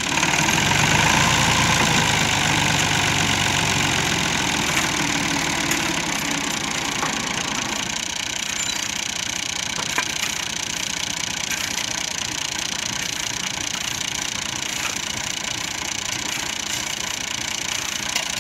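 New Holland 480 tractor's three-cylinder diesel engine running with the tractor bogged in sand. It runs harder for the first few seconds, then drops back to a steady idle.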